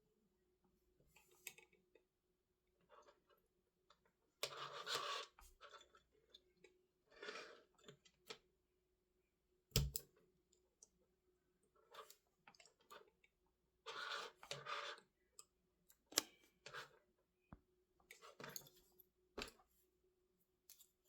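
Scattered clicks, taps and rustles of small tools and parts being handled on a workbench during drone flight-board repair, a few bursts louder than the rest, over a faint steady hum.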